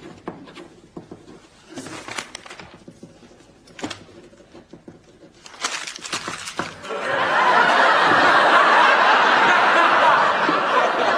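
A few small clicks and rustles, then from about seven seconds in a studio audience laughing loudly and steadily.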